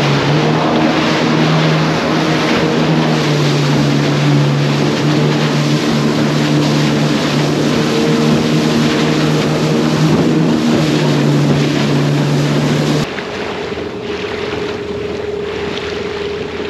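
Jet ski engine running under way, a steady engine note with a rush of wind and water. About thirteen seconds in, the sound drops suddenly to a quieter, steadier single hum.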